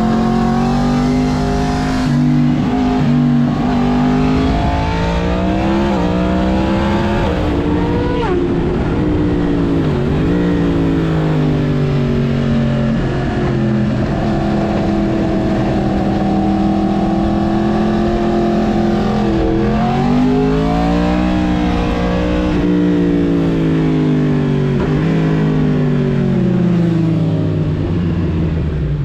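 Yamaha MT-10's crossplane inline-four engine through a full Mivv exhaust while riding. The engine note climbs under throttle and drops sharply several times, as at gear changes, holds steady for a stretch in the middle, and falls away near the end.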